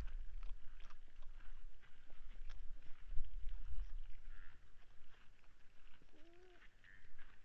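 Outdoor night ambience at a wildlife feeding site: a low rumble of wind on the microphone, with scattered small clicks and rustles of animals stepping in dry leaf litter. About six seconds in there is a short, faint pitched sound that rises and falls.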